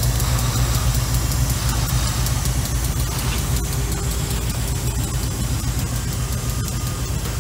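Diesel locomotive engine running at low throttle as the locomotive creeps past pulling a loaded side-dump car: a steady low rumble.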